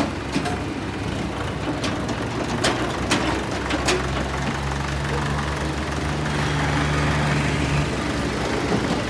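Heavy diesel machinery engine running steadily, with several sharp clanks in the first few seconds.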